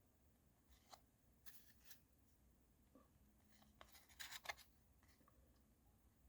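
Near silence with a few faint, short rustles and clicks, the loudest cluster about four seconds in: trading cards being handled.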